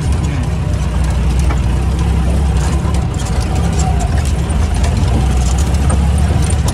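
Off-road jeep's engine running steadily under load as the jeep drives over a rough dirt track, heard from on board. Scattered light rattles and knocks come from the jolting.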